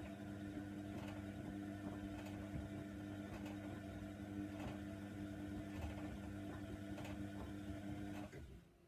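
Hoover Nextra washer dryer running: a steady electric hum with a faint click about once a second. It stops abruptly near the end.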